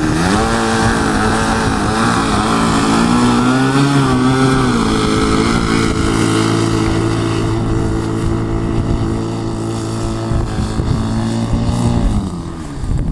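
Model aircraft engine running, its pitch wavering for the first few seconds, then holding steady before dropping away about twelve seconds in as the throttle comes back. Wind buffets the microphone underneath.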